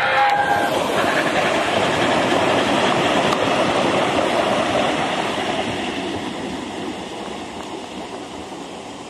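O gauge model train, an LNER A4 Pacific hauling a rake of coaches, running past on garden track: a steady rushing rattle of wheels on rail that fades over the last few seconds as the train draws away. It opens with the tail of a whistle, cut off in under a second.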